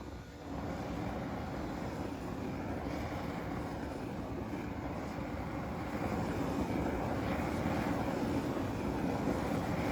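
Wood lathe running with a steady drone; it gets slightly louder about six seconds in.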